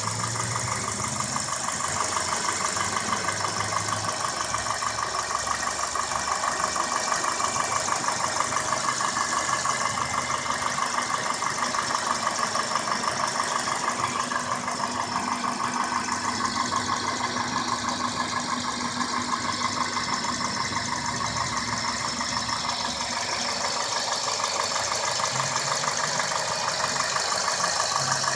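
2002 Toyota Corolla S's 1ZZ-FE 1.8-litre four-cylinder engine idling steadily, with a rapid, even ticking or clicking running through it whose cause the owner does not know.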